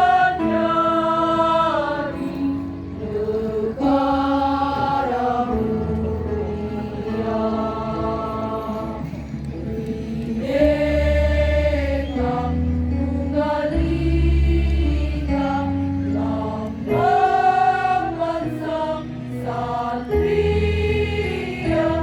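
Women's choir singing long, held notes in a slow song, over a low bass accompaniment.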